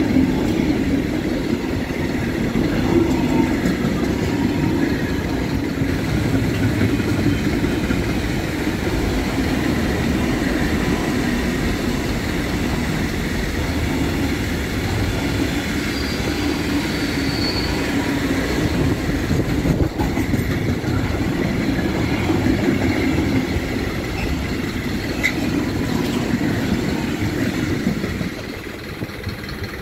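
Container freight train's wagons rolling past at close range, a steady rumble of steel wheels on the rails. The noise drops suddenly near the end as the last wagon passes.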